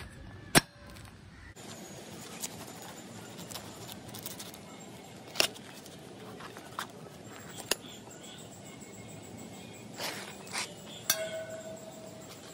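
Large knife cutting a jackfruit into wedges on a concrete floor: several sharp knocks spaced a second or more apart as the blade strikes the rind and the floor, the loudest about half a second in.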